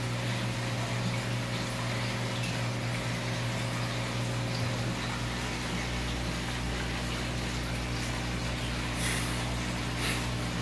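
Aquarium filter pump running: a steady low hum with the sound of moving water.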